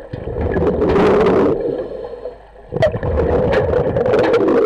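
A diver's exhaled air bubbling out of a regulator underwater, heard close to the camera: two long exhalations of about two seconds each, full of crackling bubble pops, with a short gap between them.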